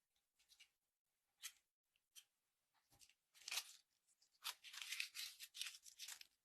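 Slime being handled close up, making short crackling and crunching sounds. These are scattered at first, then run almost continuously through the second half.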